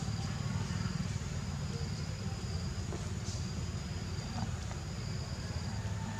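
Insects trilling high and thin in repeated bursts about a second long, over a steady low rumble.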